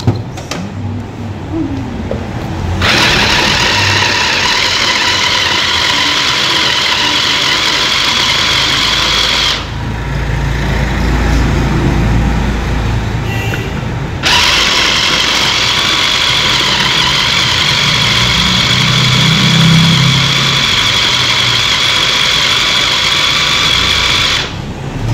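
Electric kitchen mixer grinder running in two long bursts with a steady high whine over the motor noise. The first burst lasts about six seconds; after a pause of some five seconds the second runs about ten seconds and stops near the end.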